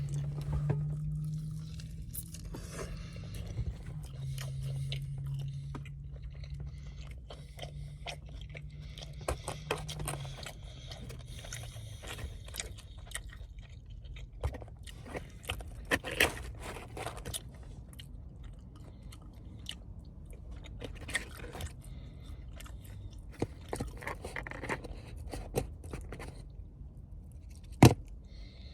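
Close-up chewing and biting of buffalo wings dipped in ranch, with irregular crunches, wet smacks and small clicks. A low steady hum sits underneath for about the first ten seconds, and a sharp click stands out near the end.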